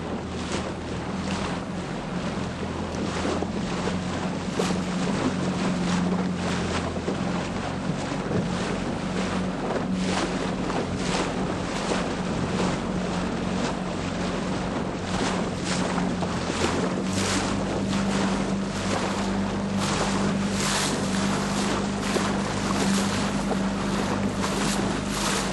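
Wind buffeting the microphone and water rushing past the hull of a sailboat under way, with gusts coming and going more strongly in the second half. A steady low hum runs underneath and changes slightly about two-thirds of the way through.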